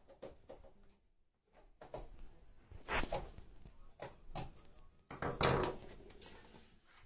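Irregular clicks, taps and knocks of hands handling a heating receiver's plastic wall plate, the receiver unit and small tools. The loudest knocks come about three seconds in and again about five and a half seconds in.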